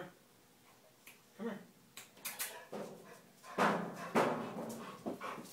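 Pit bull dog vocalizing in a series of short sounds, loudest a little past halfway through.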